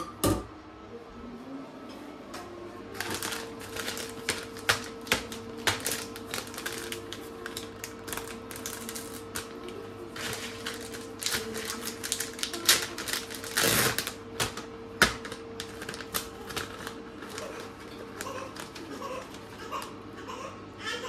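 A single sharp clank of a utensil set down in a stainless-steel sink at the start. Then a long stretch of crisp crinkling and crackling as a plastic bag of shredded cheddar is handled and opened. A faint steady hum runs underneath.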